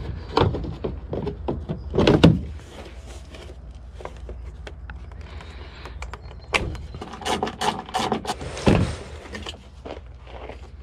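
Plastic tail light assembly of a Nissan 350Z being tugged and pulled off the rear of the car: plastic clicks, knocks and scraping in two spells, the first in the opening two seconds or so and the second from about six to nine seconds in.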